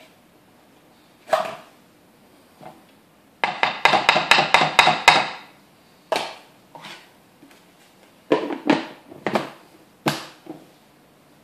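A metal spoon knocking against the rim of a bowl to shake off butter spread: a quick run of about eight sharp taps about halfway through, with single knocks before and a few more after. Near the end a plastic lid clacks down onto the bowl.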